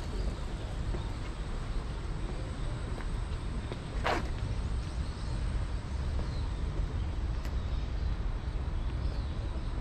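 Outdoor street ambience heard while walking beside a road: a steady low rumble of traffic and moving air, with one short, sharp noise about four seconds in.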